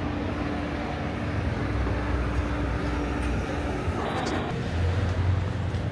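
City street traffic noise: a steady rumble of passing vehicles, louder near the end.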